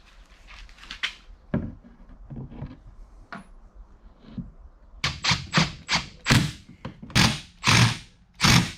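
A series of sharp knocks and thunks: scattered and fairly soft at first, then about eight loud strokes in quick succession over the last few seconds.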